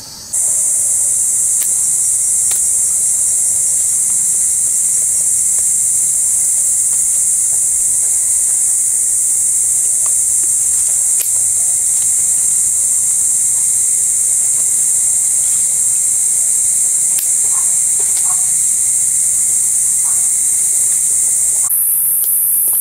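Loud, steady, high-pitched insect drone with a few faint clicks and knocks under it. The drone shifts abruptly near the end.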